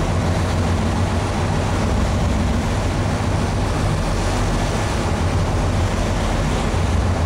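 Fishing boat's engine running steadily under way, a low hum, with the rush of the wake and wind over it.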